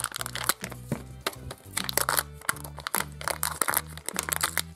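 Background music with held bass notes, over the crisp crinkling and crackling of a Kinder Joy egg's thin plastic-foil seal being peeled back by its tab.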